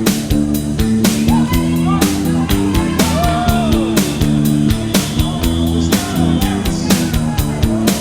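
Rock music with a steady drum beat, guitar and bass, with singing over it.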